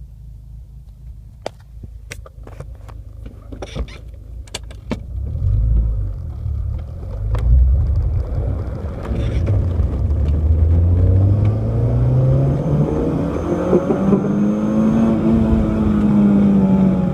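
Renault Clio 182's four-cylinder engine pulling up through the rev range, its note climbing steadily in pitch and growing louder to a peak near the end, after a few sharp clicks in the first seconds. This is the high-rpm range where the car has a misfire.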